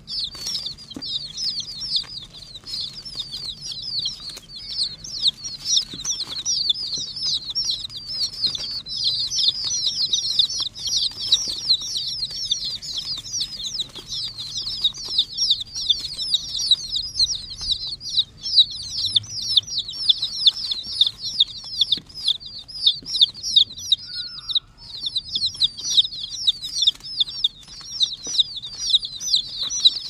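A crowd of young chicks peeping without pause, many short, high, falling calls overlapping, with a brief lull about three-quarters of the way through.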